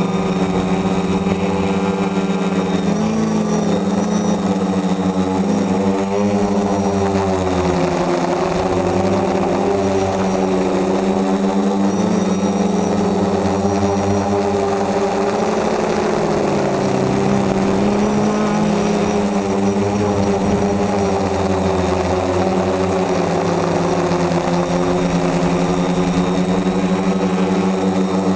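DJI F450 quadcopter's four brushless motors and 10x5 propellers whirring in flight, as heard from a camera on the frame. The pitch rises and falls as the motors change speed, over a steady high whine.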